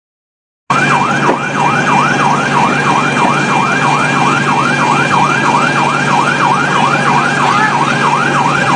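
Emergency vehicle siren in a fast yelp, sweeping up and down about three times a second over a steady hum; it cuts in abruptly under a second in. The sweeps and hum run on without a break after that.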